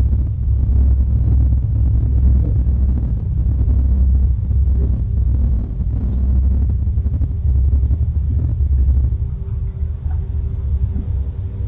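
Steady low rumble through a doorbell camera's microphone, swelling and easing every second or two, with a faint thin hum coming in near the end.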